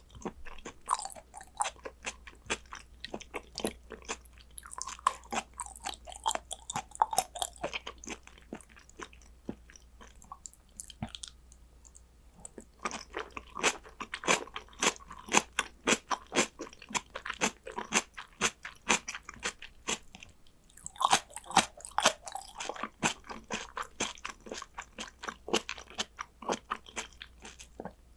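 A person chewing and biting food close to the microphone: a steady stream of wet mouth clicks and crunchy chews, with a short pause about eleven seconds in.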